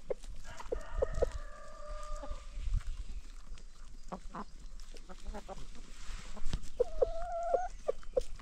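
Free-range chickens clucking in short repeated notes, with a drawn-out call of about two seconds near the start and a shorter held call near the end.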